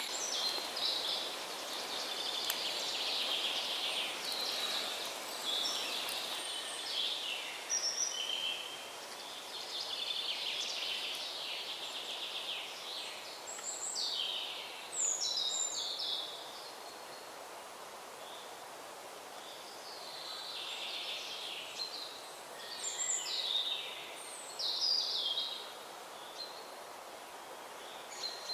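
Several woodland birds singing, with many short overlapping chirps and trills throughout. A steady background hiss runs underneath.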